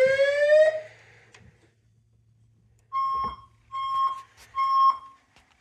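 A fire alarm voice-evacuation speaker's rising whoop tone cuts off under a second in. After a short near-silence, the speaker sounds three evenly spaced steady high beeps, each about half a second long, as the alert tone ahead of a new evacuation message.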